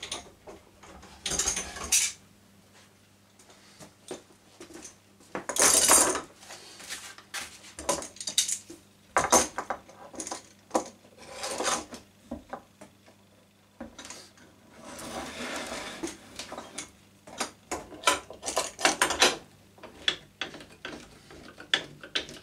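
Steel bar clamps with screw handles being set and tightened across wooden strips on a workbench: irregular metallic clicks, clatters and knocks of metal and wood, with one longer scrape about fifteen seconds in.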